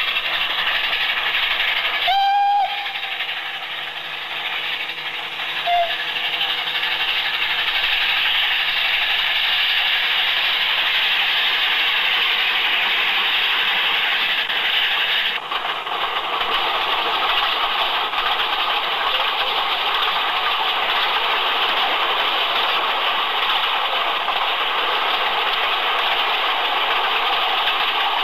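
Narrow-gauge steam train running, with a steady rattle of the coaches on the track. A short whistle blast comes about two seconds in, and a brief second toot near six seconds. The sound changes abruptly about halfway through.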